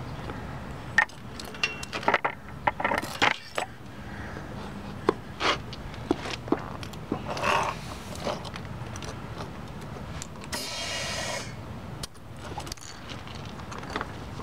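Sharp metal clicks and rattles of a screwdriver twisting a nylon rope tourniquet around a lawn tractor's tubeless caster tire, coming in quick runs over most of the first nine seconds. About ten and a half seconds in, a hiss of compressed air from the air chuck on the valve lasts about a second.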